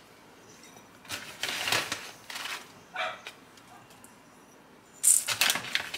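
Rolled oats tipped from a measuring spoon into a stainless steel mixing bowl of butter and brown sugar, the loudest sound, a dense burst about five seconds in. Earlier, a few short, fainter sounds.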